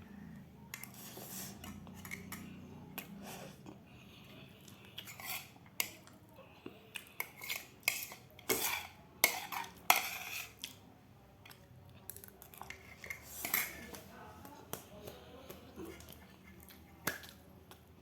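Cutlery clinking and scraping against a plate while eating: irregular sharp taps, several close together in the middle of the stretch, with quieter gaps between.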